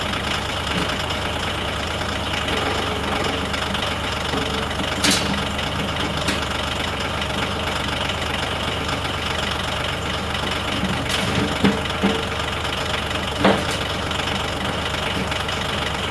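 Yanmar diesel tractor engine running steadily, with a few sharp knocks, about 5 s in and three more between 11.5 and 13.5 s, as the front bucket lifts a hydraulic unit.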